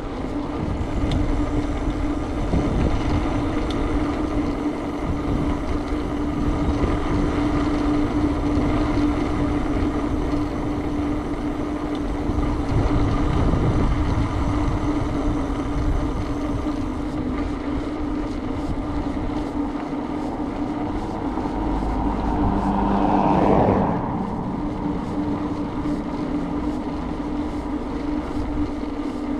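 Steady road noise of a moving ride, with a constant hum throughout. About 23 seconds in, a vehicle passes, swelling louder and then dropping away.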